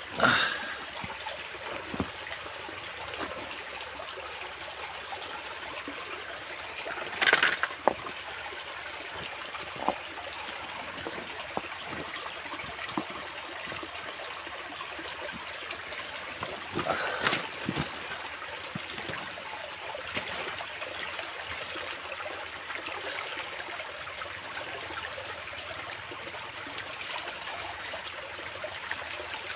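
Shallow rocky forest stream running steadily over stones. A few brief louder noises stand out, about 7 and 17 seconds in.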